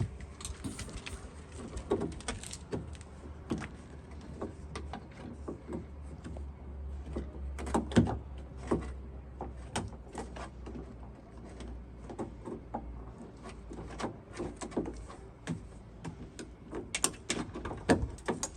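Irregular clicks, taps and knocks of hands and tools working a door-handle linkage rod and its clip out of the inside of a Fiat 500 door, with one sharper knock about eight seconds in.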